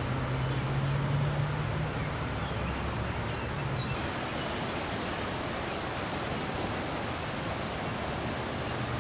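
Steady rushing of floodwater on the Chippewa River at major flood stage, an even noise with no breaks. A low hum runs under it for the first four seconds, then drops away.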